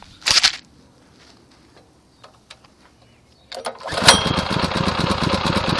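Predator 212cc single-cylinder four-stroke engine being pull-started: a short loud noise just after the start, a quieter stretch, then the engine catches about four seconds in and settles into a steady low idle.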